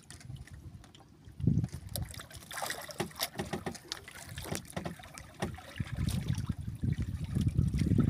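Sea water lapping and splashing against the hull of a drifting outrigger boat, with uneven low rumbles and scattered light knocks and splashes.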